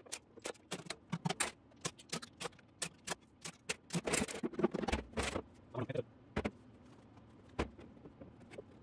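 Metal engine parts and bolts clicking and clattering against a steel shop cart and engine stand during an engine teardown, with a denser rattling scrape about four seconds in. Only a few faint clicks follow.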